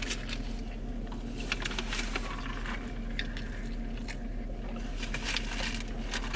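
Close-up eating sounds: chewing, with small scattered clicks and rustles from paper food wrappers and a cup, over a steady low hum.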